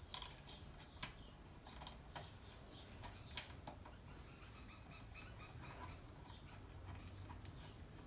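Small metallic clicks and ticks of impeller housing bolts with spring washers being threaded by hand into a screw pump's metal body. The clicks are scattered, with a quick run of fine ticks in the middle.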